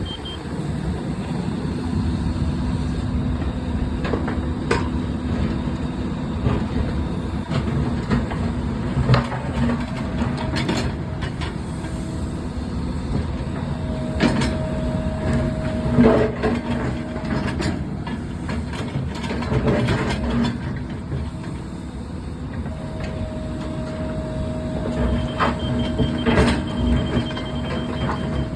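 Excavator engine running steadily under work, with a whine that comes in for a few seconds mid-way and again near the end. Scattered knocks and clanks sound throughout.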